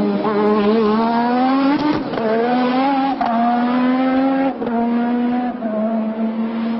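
Williams FW11 Formula One car's Honda 1.5-litre turbocharged V6 at racing speed. Its revs climb over the first couple of seconds, and the note then breaks and steps several times as the gears change.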